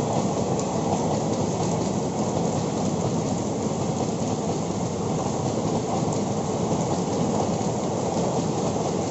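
Heavy rain falling, mixed with the steady rumble of the Ananthapuri Express's coaches running past on the track.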